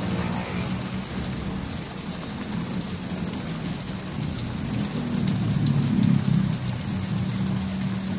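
Muddy water gushing out of a PVC pipe outlet and splashing down as a sand water filter is backflushed, flushing out mud sediment. A steady low engine-like hum runs underneath, a little louder around six seconds in.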